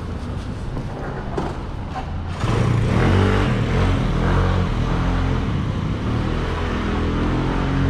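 A car engine running close by, with a low rumble that gets louder and fuller about two and a half seconds in as the car comes near.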